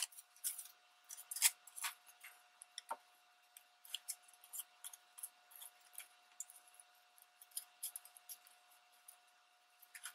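Light, scattered rustles and soft taps of torn magazine paper strips being picked up and pressed onto a glued paper base, over a faint steady tone.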